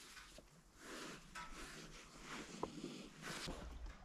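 Faint rustling and handling noises from a person moving about, several soft separate swishes.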